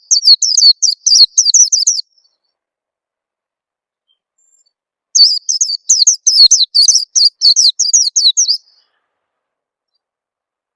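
White-eye (pleci) song used as a lure call: two bursts of rapid, high, down-slurred twittering notes. The first burst lasts about two seconds; the second starts about five seconds in and runs for about three and a half seconds, with dead silence between.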